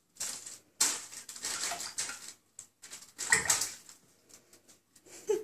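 Shallow bathwater splashing in irregular bursts as a Sphynx cat wades and paws about in a bathtub.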